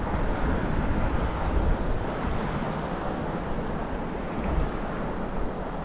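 Wind blowing across the microphone over choppy sea water washing around a kayak: a steady rushing noise with a low rumble that swells and eases.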